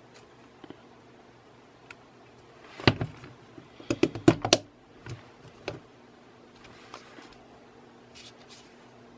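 Plastic parts of a Canon 75-300mm zoom lens clicking and knocking as a ring is pressed and seated onto the lens barrel by hand: a knock about three seconds in, a quick cluster of clicks around four seconds in, then a few softer clicks.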